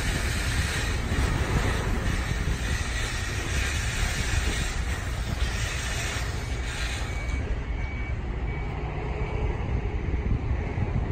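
Wind buffeting the microphone: an uneven low rumble with a steady hiss of open-air harbour ambience.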